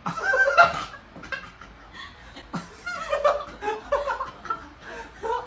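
A person laughing in short bursts.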